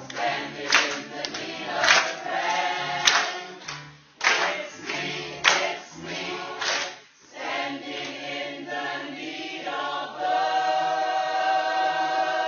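A group of voices singing together a cappella, with a few sharp beats in the first half, ending on a long held chord.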